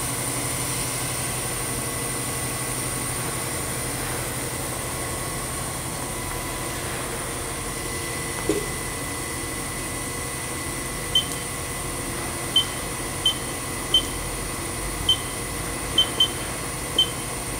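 Haas VF5 vertical machining center's spindle running steadily at 1500 RPM without cutting: a steady hum with a faint even whine. From about eleven seconds in, a string of about nine short high beeps from the control panel as keys are pressed.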